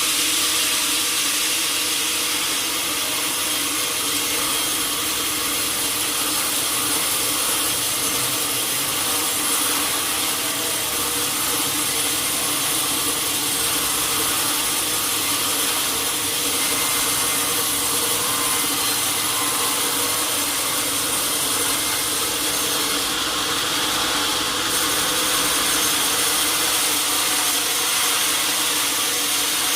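Sawmill saw cutting through a teak log, a steady, continuous run with no pauses.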